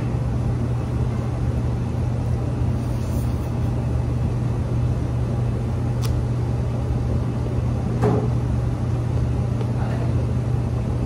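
A steady low machine hum, with a few faint eating noises: a click about six seconds in and soft knocks around eight and ten seconds.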